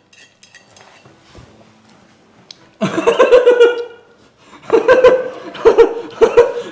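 A person laughing loudly in short, high-pitched bursts. It starts suddenly about three seconds in after a quiet spell, pauses briefly, then comes again as a string of quick pulses.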